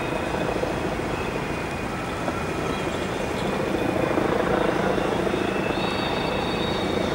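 Rosenbauer WaWe 10000 water cannon trucks' diesel engines running with a steady rumble that grows a little louder about halfway through.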